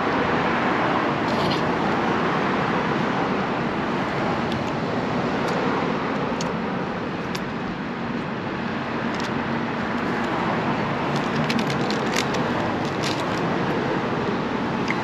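Steady rushing background noise with scattered light clicks and taps from handling food while eating, more of them near the end.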